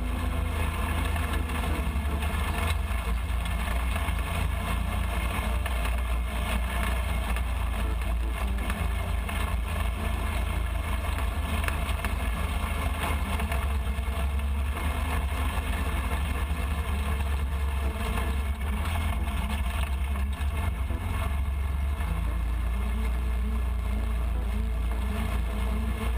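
Off-road go-kart's engine running steadily as it drives through snow, with a heavy low rumble throughout.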